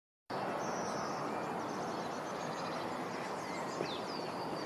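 Outdoor ambience: birds chirping and calling over a steady background hiss.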